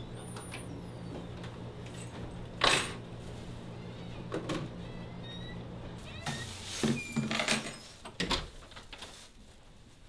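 A motel room door shuts with a sharp knock about two and a half seconds in, over a steady electrical hum. More knocks and rustling follow in the second half, after the hum stops.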